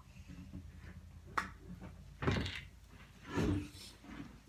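Aerosol can of shaving cream being handled and shaken: a sharp click about a second and a half in, then two short noisy bursts about a second apart.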